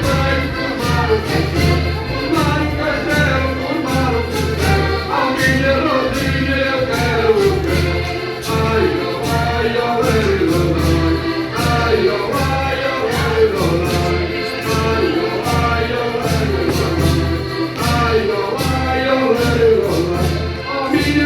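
Background music with a steady bass beat and singing voices.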